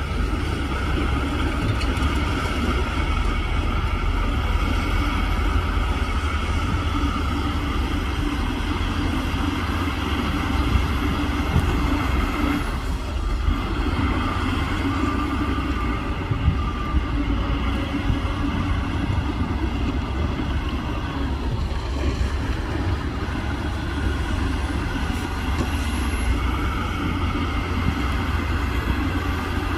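Shantui DH17C2 bulldozer's diesel engine running steadily as it works, a deep continuous rumble with a slight dip about thirteen seconds in.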